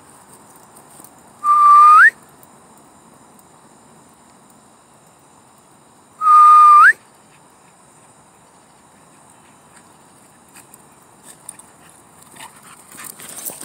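Two loud whistles calling the dogs back in. Each is a held note that flicks sharply upward at the end, the second about four and a half seconds after the first.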